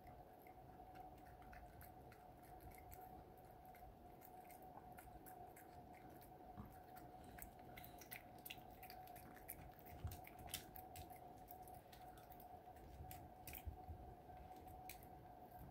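A chihuahua licking and chewing a grain of cooked rice from a fingertip: faint wet clicks of tongue and teeth, sparse at first and coming thicker in the second half, over a faint steady hum.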